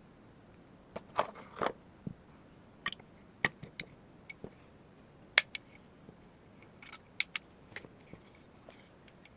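Irregular clicks, taps and clinks of small airsoft rifle parts being handled and fitted together during assembly, the sharpest about halfway through.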